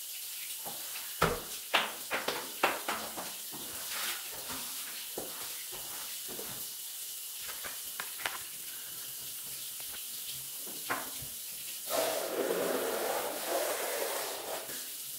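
Rubber floor squeegee worked over wet ceramic tiles: a quick run of sharp clacks and knocks in the first few seconds, then scattered clicks over a steady hiss, and a swishing, rubbing noise for about three seconds near the end.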